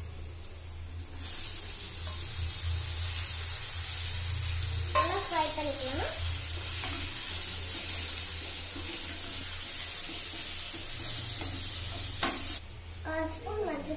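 Chopped tomatoes and onion frying in a clay pot, with a steady sizzle as they are stirred with a wooden spoon. The sizzle starts about a second in and stops abruptly near the end, with a sharp tap of the spoon about five seconds in.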